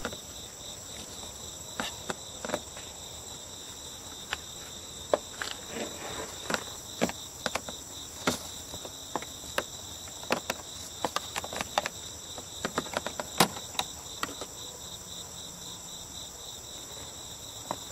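Plastic clicks and snaps at irregular intervals as a screwdriver pries the door-latch bezel out of a car's interior door trim panel. Under them runs a steady, high insect chirring.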